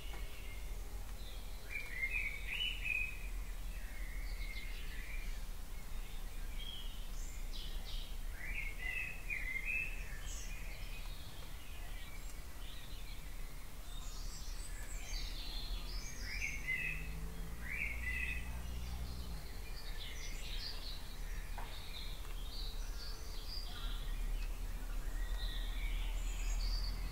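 Dawn chorus: several songbirds singing over one another in short chirps and phrases, with a steady low rumble underneath.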